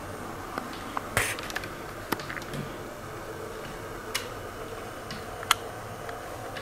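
Model passenger cars rolling along the layout track with a steady low running noise, broken by a few sharp, irregularly spaced clicks, the loudest near the end.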